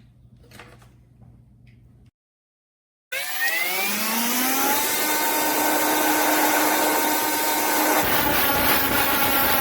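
Cordless brushless angle grinder starting up about three seconds in, its whine rising in pitch and then running steady. Near the end a harsher grinding rasp joins it as the disc bears on metal to strip rust and paint.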